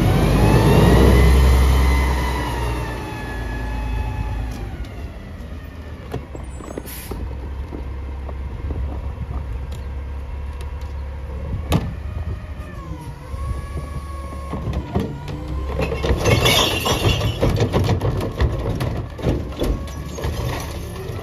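Mack LEU truck's CNG engine revs up and winds back down, then runs steadily with a few knocks. Near the end a recycling cart is tipped by the rear loader's hydraulic cart tipper and the recyclables clatter into the hopper, with repeated bangs.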